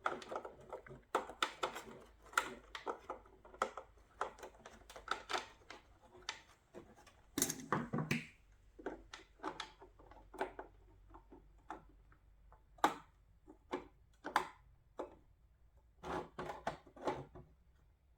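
Irregular light clicks and knocks of hands working on a halogen headlight assembly as the turn-signal bulb socket is refitted, some single and some in quick clusters.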